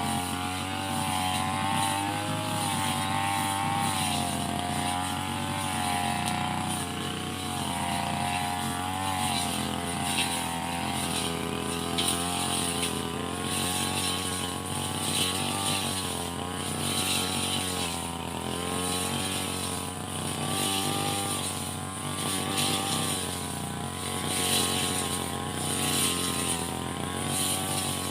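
Small two-stroke engine of a brush cutter running at working speed, its pitch wavering up and down as it cuts grass.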